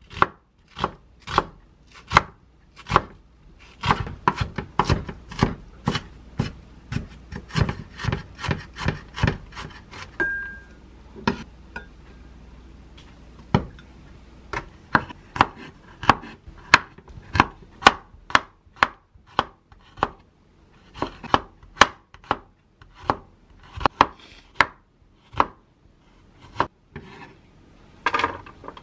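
Chef's knife slicing onion on a wooden cutting board: a run of crisp chops, about two a second, breaking off for a few seconds near the middle before the chopping starts again.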